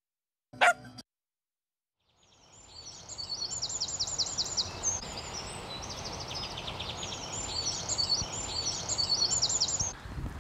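Outdoor ambience fading in after a brief silence: birds singing, with repeated high, fast trills, over a steady background hiss. A single short, loud sound comes about half a second in, before the silence.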